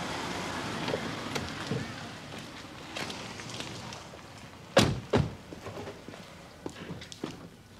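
A car drives past, then the two front doors of a BMW 5 Series are shut one after the other, two solid thunks about half a second apart, followed by light footsteps on the street.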